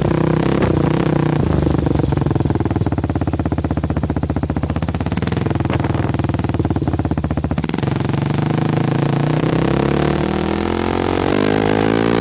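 Exhaust of a Kawasaki KFX 400 ATV's single-cylinder four-stroke engine recorded right at the muffler, distorted. It runs steadily under throttle, drops off about 8 seconds in, then revs up with a rising pitch near the end.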